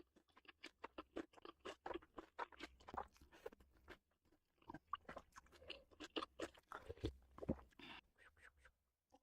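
Faint, irregular crunching and chewing of crisp food, in quick crackly bites, from a mukbang eater.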